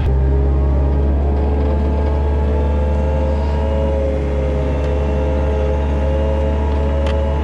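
A large engine or machine running at steady speed: a deep drone with a whine above it that rises slightly just after the start and then holds.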